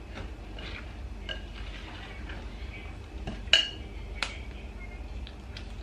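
Wire whisk ticking lightly against a ceramic mixing bowl as it stirs cake batter, then a metal spoon clinking sharply twice against a small glass bowl, about three and a half and four seconds in, while candied fruit is scooped out.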